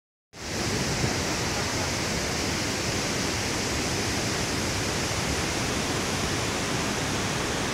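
Steady rush of water from a river waterfall, cutting in about a third of a second in and holding an even level throughout.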